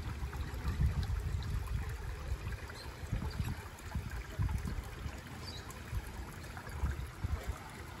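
Shallow water trickling steadily over the black lava rocks of a small, wide waterfall, with an uneven low rumble underneath.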